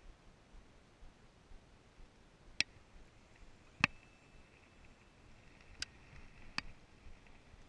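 Four sharp clicks from a baitcasting rod and reel being handled, spaced about a second or two apart, with a faint steady high whine from the second click on.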